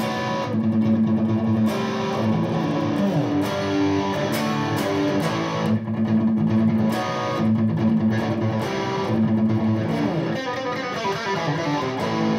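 Soviet Elgava-B electric guitar picked through an overdriven amplifier, playing a continuous phrase of held notes and chords with a few short breaks.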